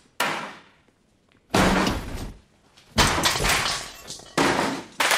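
A series of loud crashes as breakable objects are smashed with a hammer, including breaking glass, about five blows spaced roughly a second apart, each dying away quickly.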